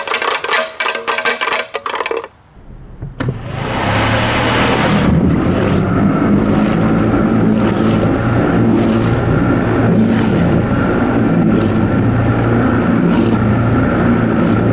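Hamilton Beach 7-speed Blendmaster blender with a rock in its plastic jar: a fast, loud rattling clatter for about two seconds that then dies away. After a short lull the blender's motor runs steadily with a low hum, churning the jar's contents.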